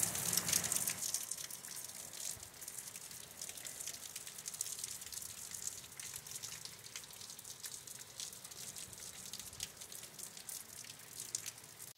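Heavy rain falling on a wet, flooded street: an even hiss with a dense patter of drops, louder in the first second or so and then steady.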